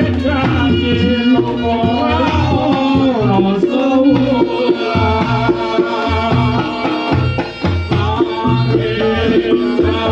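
Reog Ponorogo gamelan music: hand drums beating a steady, busy rhythm under a wavering, sliding melody line.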